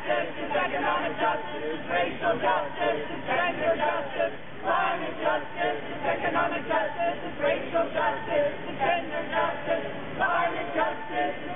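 Crowd of protesters singing together without instruments, led by a woman singing into a handheld microphone.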